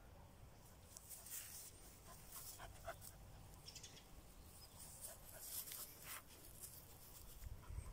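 A dog panting faintly, a few short breathy rushes at uneven intervals.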